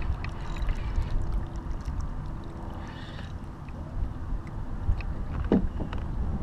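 Water lapping against a kayak hull with a low rumble of wind on the microphone, scattered faint ticks, and one short knock about five and a half seconds in.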